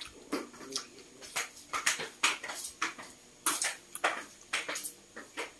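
Close wet mouth sounds of eating milkfish by hand: an irregular run of sharp smacks and clicks as the fish is chewed and picked off the bones.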